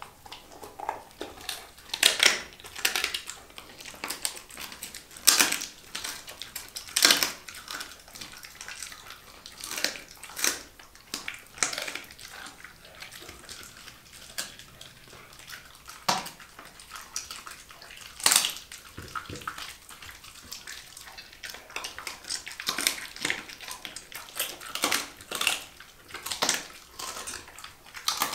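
Large dog chewing raw food with wet, irregular smacks and crunches of its jaws and tongue, some bites much louder than others.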